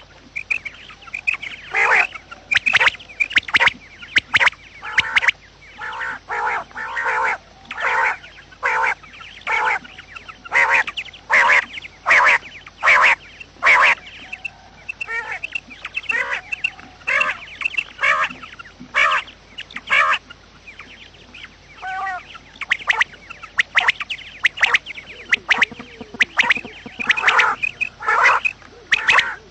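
Quail calling over and over, short calls repeated about one to two a second, some in quick runs of two or three.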